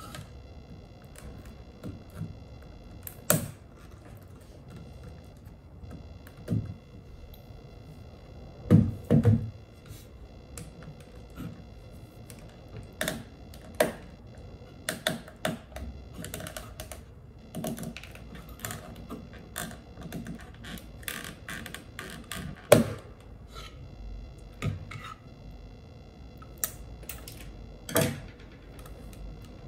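Plastic housing parts of a Dyson V8 stick vacuum being handled and worked with a screwdriver during disassembly: irregular clicks, taps and knocks of hard plastic and metal, with a few sharper knocks among them.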